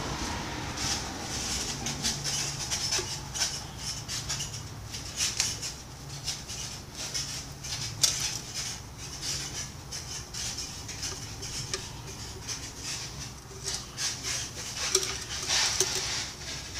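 Irregular plastic clicks, taps and scrapes as fuel line parts are worked through the filler opening of a string trimmer's plastic fuel tank.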